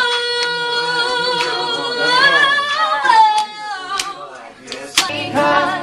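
A slow R&B love song sung by a single voice: one long high held note, then a run that bends down through several notes. A few sharp clicks come in near the end, as a lower accompaniment enters.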